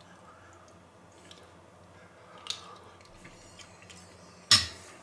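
A man quietly chewing a mouthful of stew, with a spoon striking a ceramic plate sharply once near the end.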